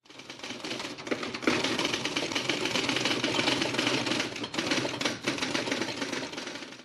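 A rapid, dense clattering sound effect, fading in over about a second and stopping abruptly near the end.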